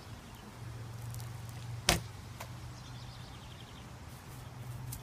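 One sharp thud about two seconds in, a thrown water balloon striking without bursting, over a low steady hum.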